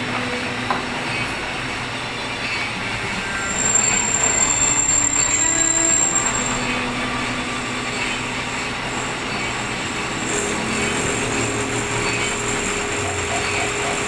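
Metalworking machinery running steadily, with a thin high-pitched squeal of metal being worked. It grows louder for about three seconds, a quarter of the way in.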